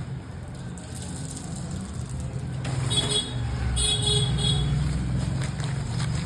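Steady low rumble of road traffic, with short high-pitched tones about three seconds in and again near four seconds.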